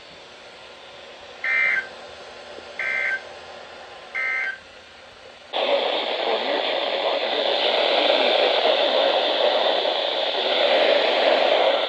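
Three short warbling two-tone data bursts of an Emergency Alert System end-of-message code, about a second and a half apart. Then, about five and a half seconds in, a loud steady radio static hiss starts and keeps on.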